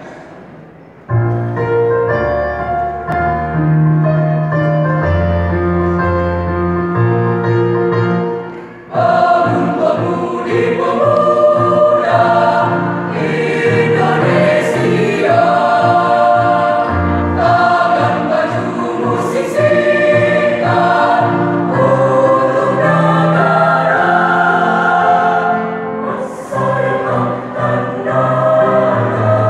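Mixed high-school choir singing in several parts at once, starting about a second in. After a brief dip about nine seconds in, the singing comes back louder and fuller.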